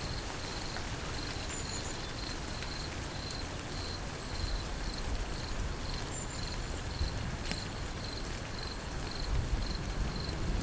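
Steady rain falling, with an insect chirping over it in a high, regular pulse of about three chirps a second.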